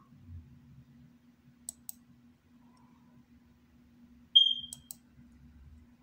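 Computer mouse clicks: a quick double click about a second and a half in, then, near the end, a short high ringing ping followed by two more clicks.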